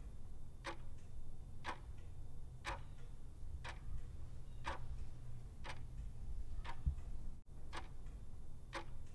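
Clock ticking about once a second, a countdown tick while the quiz question waits for its answer, over a low steady hum.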